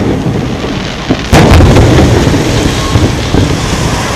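Aerial firework shells bursting: one big boom about a second in, followed by a long rumbling tail and a few smaller pops.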